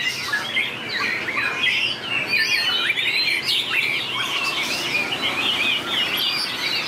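White-rumped shama singing a fast, unbroken stream of varied whistled notes, trills and chatter.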